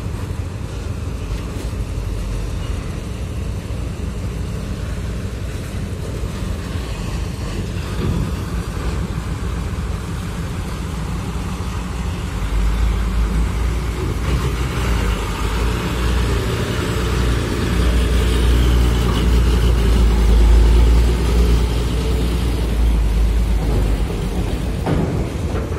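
Trucks and cars driving off a ferry's ramp onto the dock, engines running in a steady low rumble. A loaded truck's engine grows louder from about halfway through as it passes close, peaking a few seconds later and easing off near the end.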